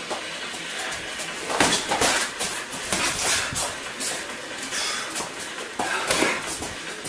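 Punches and kicks landing on bodies and gloves in full-contact sparring, coming in irregular flurries of sharp thuds, the loudest about one and a half to two seconds in.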